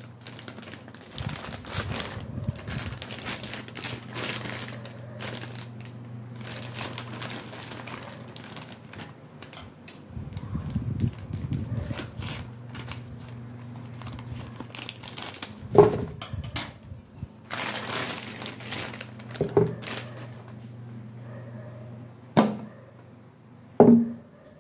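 Clear plastic bag crinkling and rustling as a white plastic radiator coolant reservoir tank is unwrapped and handled, with four sharp knocks in the second half as the plastic tank is set down and turned over. A steady low hum runs underneath, dropping out at times.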